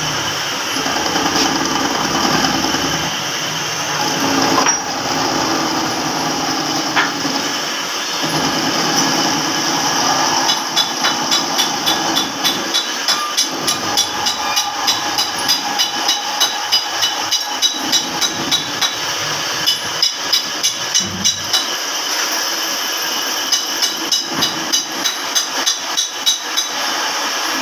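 Hammer striking metal in runs of quick blows, about two to three a second, with a light metallic ring after each. The blows start about ten seconds in.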